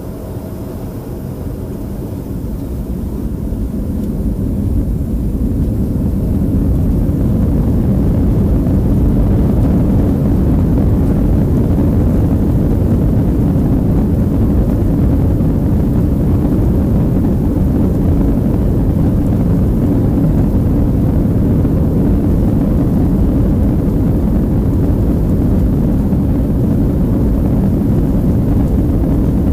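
Boeing 737-300's CFM56-3 turbofan engines spooling up to takeoff thrust, heard inside the cabin over the wing. The sound grows louder over the first six seconds or so, then holds steady as a deep, even rumble through the takeoff roll.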